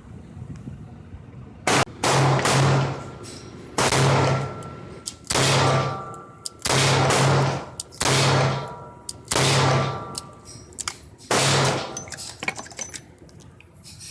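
A string of about eight gunshots, one every second or two, each with a long echoing tail.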